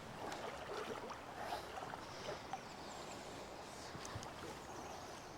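River water sloshing and splashing in uneven small splashes, as around legs or waders in a shallow river.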